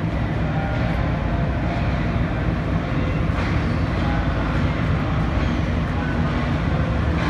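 Diesel-electric locomotive (a Pakistan Railways GEU-40) rumbling steadily as it hauls the express slowly in toward the platform.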